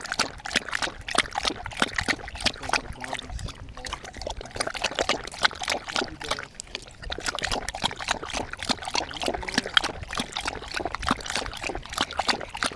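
A puppy lapping water from a shallow bowl, heard right up close from a camera on its collar: a quick run of wet, splashy laps, several a second, with a short pause about six and a half seconds in.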